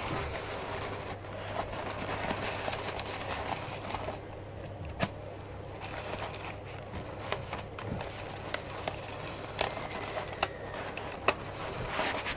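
Paper napkins rustling and crinkling as they are bunched and bound onto a wreath ring with elastic bands, with scattered sharp clicks.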